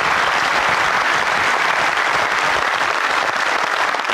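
A large seated audience applauding, a steady, dense wash of clapping.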